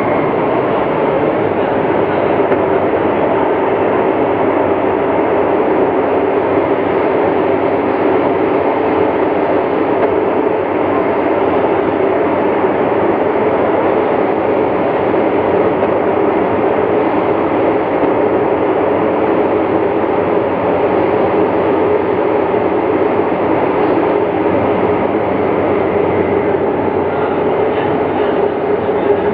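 Metro train interior noise while running: a steady rumble of wheels on the rails with a constant hum from the running gear.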